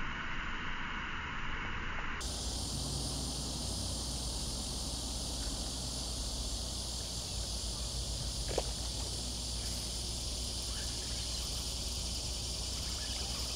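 Steady insect chorus, an even high hiss. A low steady hum comes in about two seconds in, and there is one faint click past the middle.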